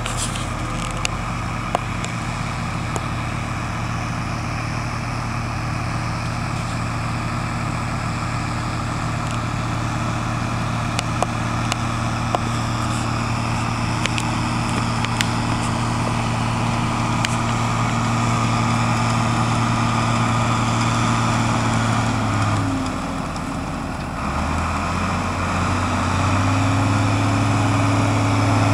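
Farm tractor diesel engine running steadily as a front loader works, with the revs dropping briefly a little past three-quarters of the way through and then picking up again. A few light clanks sound over the engine.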